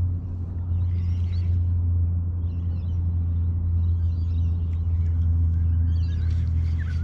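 Steady low motor hum, unbroken throughout, with faint high chirps over it.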